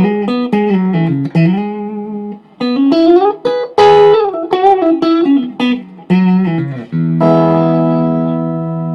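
Electric guitar with single-coil Strat pickups played clean through a Sebago Double Trouble 25-watt 1x12 tube combo with reverb. It plays a phrase of single notes with bends and slides, then a chord rings out near the end.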